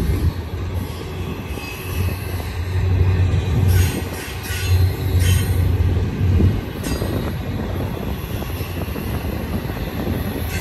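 Double-stack container train's well cars rolling past: a steady rumble of steel wheels on rail, with a deep low hum through the first half. A few short, high wheel squeals come about four to five seconds in.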